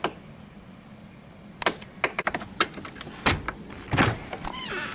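A house door being worked open: a run of latch clicks and knocks, heavier thumps a little past halfway and about a second later, and a short squeak near the end.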